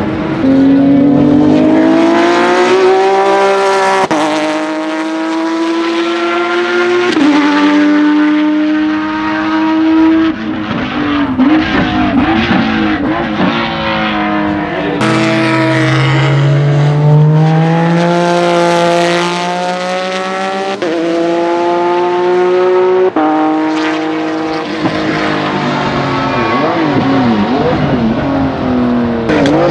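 Porsche 996 GT3 race car's 3.6-litre flat-six engine at full throttle, its pitch climbing and then dropping sharply at each of several upshifts in a row. Near the end the revs rise and fall unevenly.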